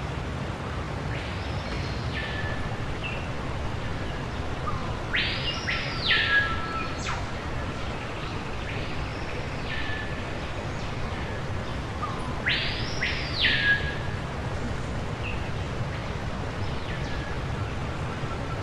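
Repeating electronic swooping tone that jumps up sharply, holds high and drops back down, about every four seconds, alternately louder and softer, over a steady low rumble.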